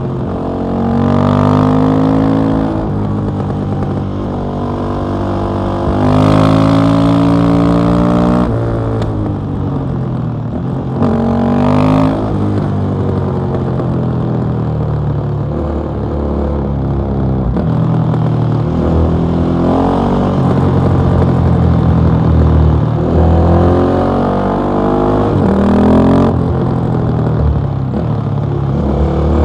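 KTM 660 SMC's single-cylinder four-stroke engine through an Akrapovic exhaust, accelerating hard while riding. Its pitch climbs steeply three times in the first twelve seconds, each time dropping off suddenly as the throttle shuts or a gear changes, and then it runs steadier with smaller rises and falls.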